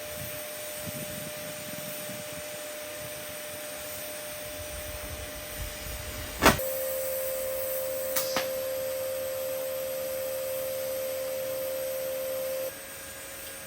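TIG welding arc on carbon steel: a sharp crack as the arc strikes about halfway through, then a steady humming whine for about six seconds that cuts off about a second before the end. Before the strike there is a steady hiss with a faint tone.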